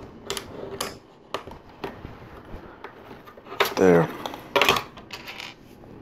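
Plastic LEGO pieces clicking and clattering as a plate is pressed onto a larger plate and small pieces are picked up and handled: a scattered series of sharp clicks, the loudest about three-quarters of the way in, with a quick cluster near the end.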